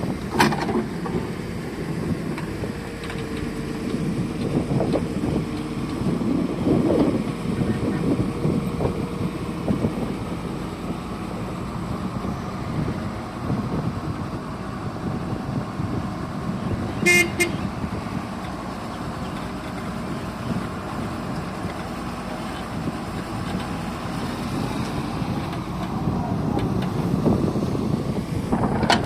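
Hyundai 140W wheeled excavator's diesel engine running with its level rising and falling as it works, and a brief high tone about halfway through.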